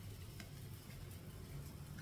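Quiet kitchen sound: a faint steady low hum, with one soft tick about half a second in as a metal ladle moves in an aluminium soup pot.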